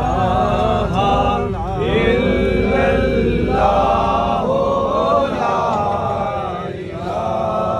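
Slow melodic male chanting with long held, wavering notes, over a low steady rumble that fades about six seconds in.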